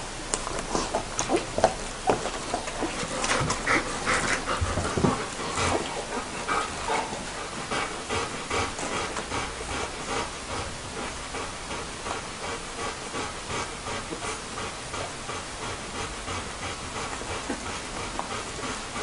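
A litter of two-week-old Bernese Mountain Dog puppies nursing from their mother: a busy run of suckling and smacking sounds with small squeaks, most active in the first few seconds and steadier after.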